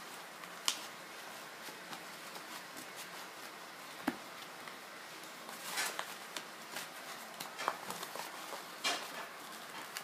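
A sheet of printer paper being folded and creased by hand, giving scattered short rustles and crinkles.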